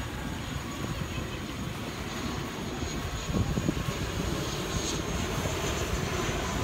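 Jet airliner's engines passing overhead: a steady roar with a thin high whine above it.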